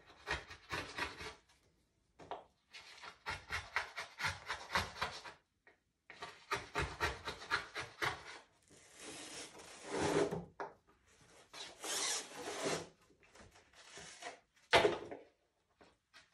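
Pencil scratching across a bare wooden panel in quick back-and-forth strokes, in spells of one to three seconds with short pauses. Near the end comes one brief, much louder scrape.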